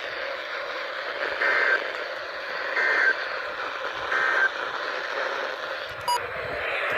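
Three short EAS/SAME end-of-message data bursts, each about a third of a second, a second and a half apart, over the steady hiss of a weather radio receiver; this signals the end of the alert message. A brief click comes near the end.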